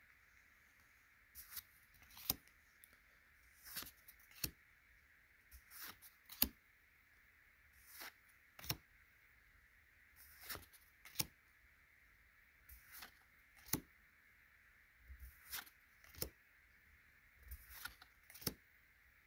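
Pokémon trading cards being flipped through by hand, one card slid off the front of the stack and tucked behind the others: a short pair of papery snaps or slides about every two seconds, over a faint steady hiss.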